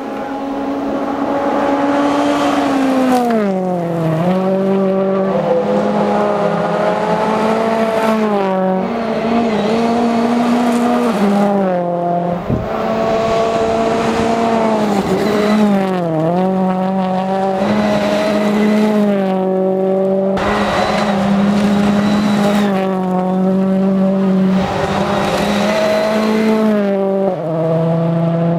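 Ford Fiesta rally car's engine running hard at high revs. The pitch holds for long stretches, dips sharply and climbs back several times as the car shifts gear or lifts off.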